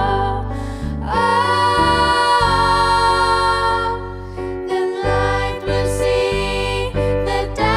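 Three young female singers singing together, backed by a live band with bass, drums and keyboard. The voices hold long notes.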